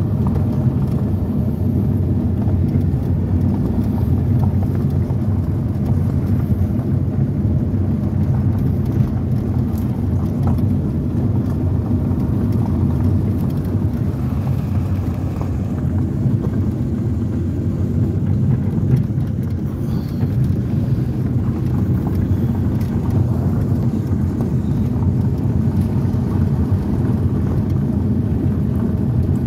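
Steady low rumble of a car driving on a gravel road, heard from inside the cabin: tyre and road noise over the running engine.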